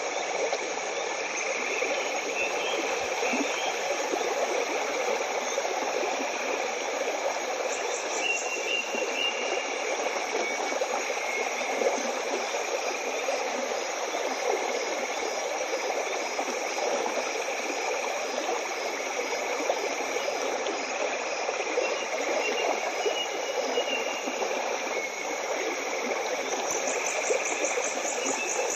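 Steady rushing noise of flowing water, like a stream. Twice, faint high rapid chirping joins it, once about eight seconds in and again near the end.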